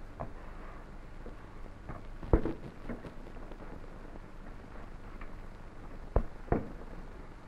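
Soft pizza dough being kneaded by hand on a floured table, with three dull thumps against the table: one about two seconds in and two close together near the end. A steady hiss of an old recording runs underneath.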